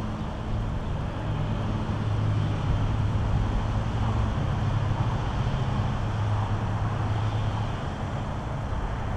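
Solowheel electric unicycle rolling over pavement: a low, steady hum from its hub motor that shifts slightly a few seconds in, over a wash of tyre and wind noise.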